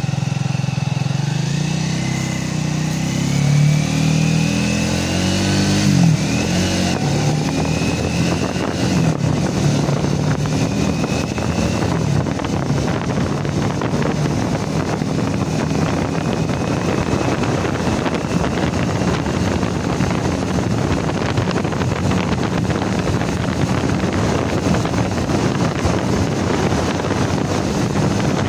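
Motorcycle engine pulling away and accelerating, its pitch rising over the first few seconds with a shift about six seconds in, then running steadily at riding speed.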